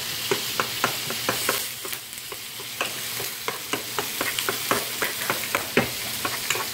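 A spoon stirring butter into thick mashed potatoes in a metal pot, with irregular clicks and knocks against the pot a few times a second. Behind it runs a steady sizzle from salmon, onions and bell peppers sautéing in a skillet.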